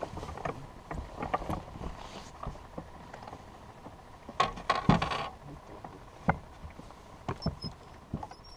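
Scattered knocks and clunks of feet and fishing gear on a boat's deck, with a cluster of louder knocks about halfway through. A faint steady tone runs underneath.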